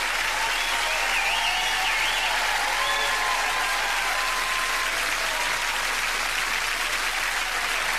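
Studio audience applauding steadily after a stage song-and-dance number.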